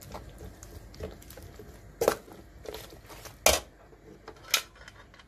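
Metal spoon scraping and knocking against a stainless-steel colander as cooked plums are pressed through it, with a few sharp clacks, the loudest about three and a half seconds in.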